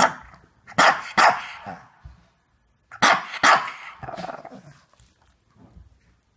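Shih tzu barking: three sharp barks in the first second and a half, then two more about three seconds in.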